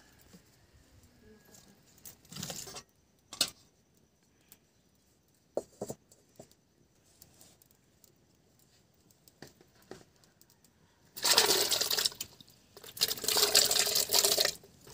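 A few faint scattered knocks, then chopped papaya and pumpkin pieces tipped from a steel bowl into a bucket with water, splashing loudly in two pours near the end.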